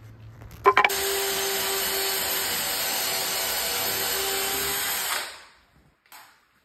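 Cordless drill running steadily into the wooden rail of a bunk-bed frame: a couple of sharp clicks, then about four and a half seconds of even motor whine, which winds down and stops.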